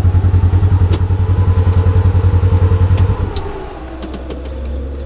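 A UTV's engine idling with a steady low chugging pulse. About three seconds in the pulse stops and the sound drops to a quieter, smoother low hum, with a couple of light clicks.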